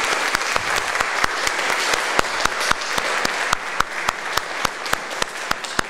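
Church congregation applauding, with one person's sharper, louder claps standing out close by; the applause dies down near the end.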